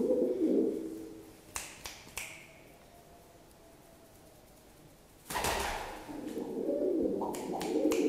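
Domestic pigeon cooing in low, rumbling coos at the start and again over the last two seconds. A couple of sharp taps come between 1.5 and 2 seconds in, and there is a short burst of noise a little past 5 seconds.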